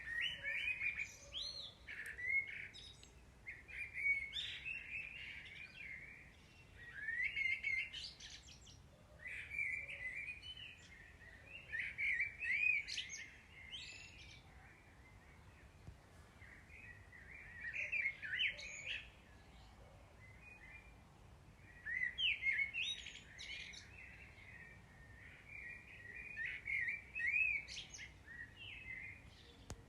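Songbirds singing: phrases of quick high chirps and warbles, one phrase every couple of seconds with short pauses between.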